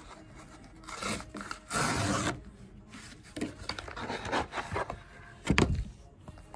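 Kraft cardboard mailer being handled and opened by hand: paper rubbing and scraping, with a louder half-second of scraping about two seconds in. A heavy thump comes near the end.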